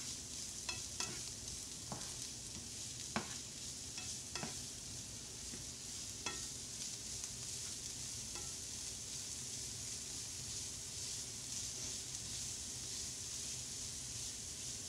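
Chopped red pepper, celery, onion and spinach sizzling steadily in oil in a nonstick skillet as the spinach softens. A slotted spoon stirs them, clicking against the pan several times in the first half.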